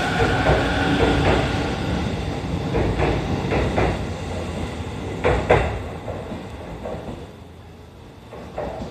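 E257 series electric train pulling out and passing close by, its wheels clacking over rail joints in pairs. The running sound fades steadily as the last car goes by and the train draws away.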